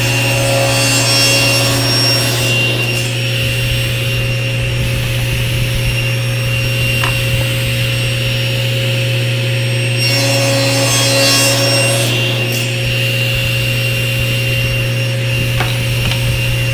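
Table saw running steadily with a crosscut sled, cutting twice through small wooden corner blocks: once near the start and again about ten seconds in, each cut lasting two to three seconds over the motor's steady hum.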